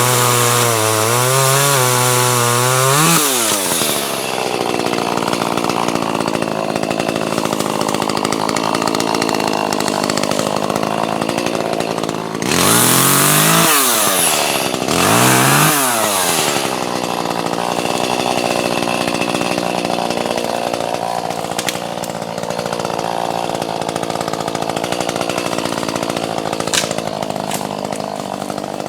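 Gas chainsaw cutting logs. It revs high, then its pitch drops as it bogs into the wood about three seconds in and runs under load. It revs up again twice around the middle, then drops back into the cut.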